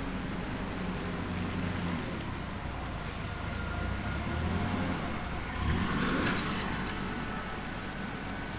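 A road vehicle driving past at low speed. Its sound builds to a peak about six seconds in, then fades.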